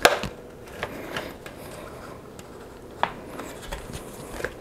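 Road bike tire being levered onto a carbon disc wheel's rim: rubber and a tire lever rubbing and scraping against the rim, with a sharp snap at the very start and another about three seconds in. The bead is a tight fit on this rim and will not go on by hand.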